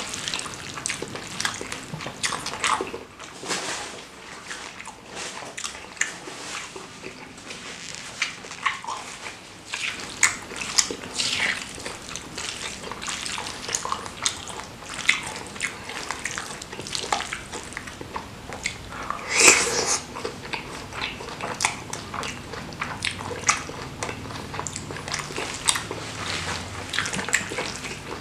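Close-miked chewing and wet mouth smacking on soft, saucy seblak crackers, with a wooden spoon scooping and scraping against a stone mortar. The sound is an irregular run of short wet smacks and clicks, with one sharper, louder one about two-thirds of the way through.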